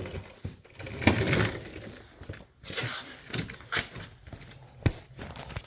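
Irregular handling noise: scattered knocks, rustles and light clicks, with one sharp click about five seconds in.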